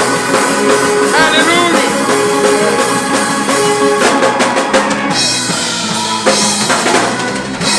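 Live church praise-break music: a drum kit playing under held chords, with a voice shouting "Hallelujah" about two seconds in.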